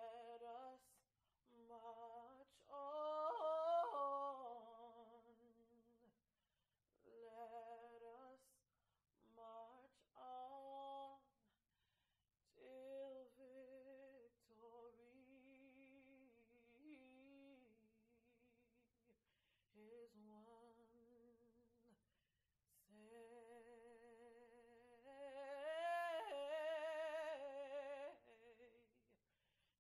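A woman singing unaccompanied, in slow phrases with vibrato on the held notes and short silent pauses between phrases; the longest, loudest phrase comes near the end.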